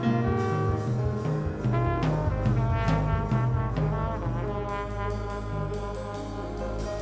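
Live jazz band playing: a brass horn carries a melodic line over drums and cymbals and a low bass line.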